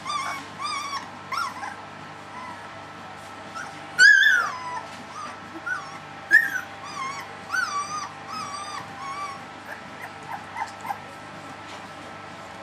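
Three-week-old Dalmatian puppy whimpering in a string of short, high-pitched squeaky cries, the loudest about four seconds in; the cries die away after about eleven seconds.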